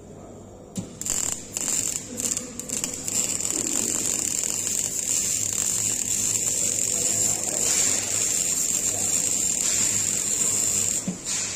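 MIG welding arc: a few short arc strikes in the first couple of seconds, then a steady welding run from about three seconds in that stops suddenly near the end.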